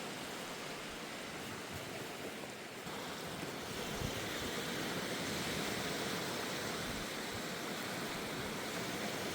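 Surf washing onto the beach: a steady rush of waves that swells a little about three seconds in.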